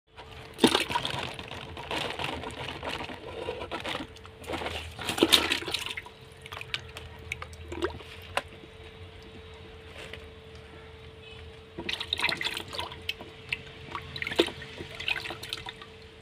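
Live fish thrashing in a bucket of water: bursts of splashing and sloshing for the first several seconds, then scattered drips and small splashes, and another run of splashing from about twelve to fifteen seconds.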